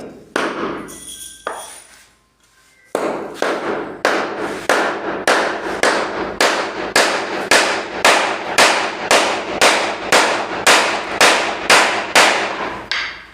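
Hammer blows in woodworking: a few single strikes, then after a short pause a steady run of strikes at about two a second, each with a short ring.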